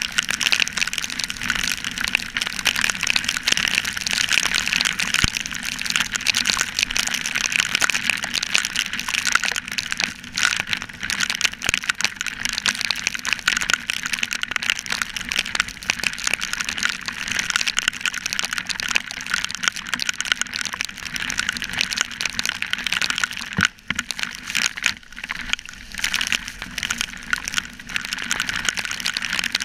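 Heavy rain and rushing riding wind on a GoPro Hero3 mounted on a motorcycle: a steady hiss crackling with rain drops striking the camera, with a low steady hum underneath. The hiss dips briefly twice near the end.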